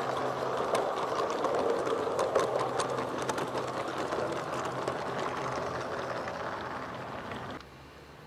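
Miniature railway coaches rolling past, their wheels rattling and clicking on the track. The sound cuts off suddenly near the end.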